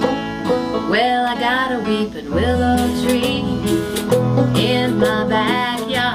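Acoustic old-time country band playing a song's opening: strummed acoustic guitar and banjo, with a sliding lead melody over them from about a second in and bass notes coming in about two seconds in.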